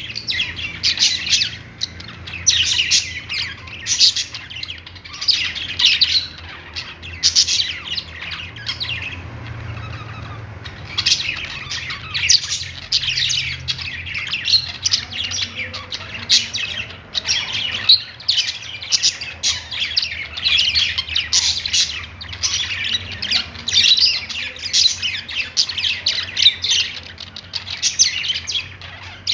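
Budgerigars chirping and warbling in a rapid, continuous chatter, thinning briefly about a third of the way in.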